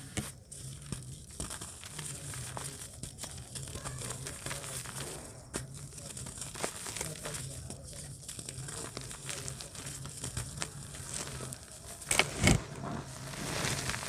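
Hands crushing and crumbling lumps of soft, dry dirt, with a steady run of gritty crackles and crumbs falling. There is a louder crunch about twelve seconds in.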